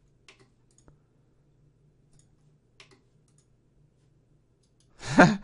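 A few faint computer mouse clicks, spaced a second or so apart, then a short burst of voice near the end.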